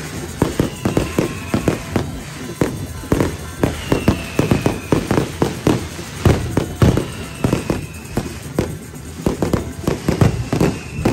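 Fireworks and firecrackers going off in a rapid, irregular string of bangs and cracks, with a high whistle falling slightly in pitch every second or two.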